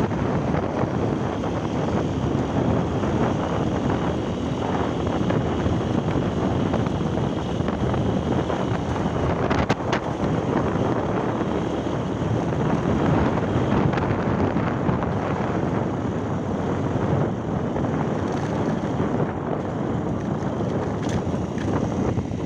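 Steady wind rush buffeting a phone's microphone on a moving motorcycle, with the bike's road and running noise underneath.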